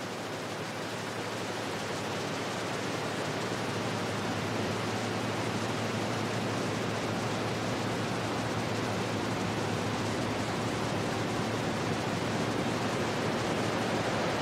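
Guitar-and-synth effects rig (Moog Grandmother, Walrus Slö reverb, Make Noise 0-Coast) putting out a steady hiss-like noise wash that slowly swells in level over a low steady hum.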